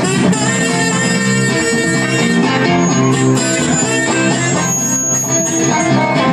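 Live band playing an instrumental passage, with guitar to the fore.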